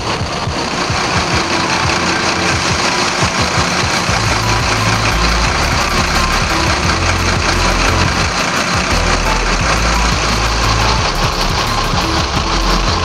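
Scania K310ib coach's rear-mounted diesel engine idling with a deep, steady rumble that grows louder from about four seconds in, a sound the on-screen caption calls "gahar" (fierce).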